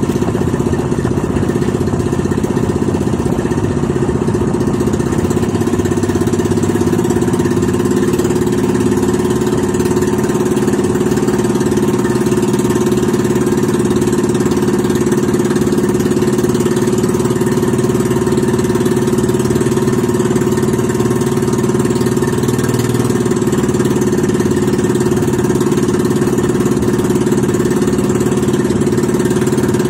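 Boat engine running steadily under way, a constant drone whose pitch shifts slightly about three-quarters of the way through.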